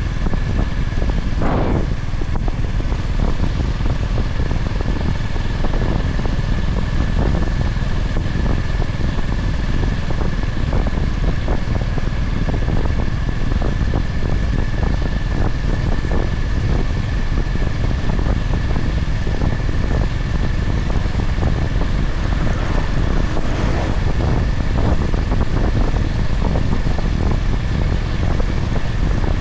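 Honda GB350's air-cooled single-cylinder engine running steadily on the ride, heavy in the low end, with a faint steady whine above it.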